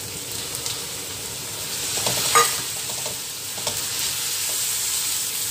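Diced raw chicken sizzling in a hot steel wok with butter and browned onion, stirred with a spatula. The spatula scrapes against the pan a few times, loudest a little over two seconds in.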